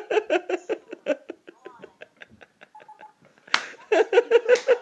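Hard laughter in rapid ha-ha pulses, dying down in the middle, then a sudden loud outburst about three and a half seconds in, with the laughing starting up again near the end.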